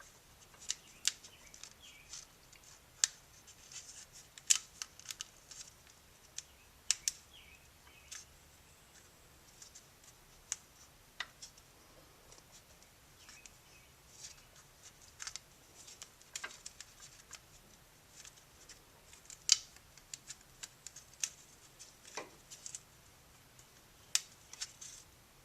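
Irregular small clicks, snaps and scratchy ticks of hands and fingernails working and stretching a stiff, hard-plastic gearbox triple seal onto its part, with a few sharper snaps scattered through.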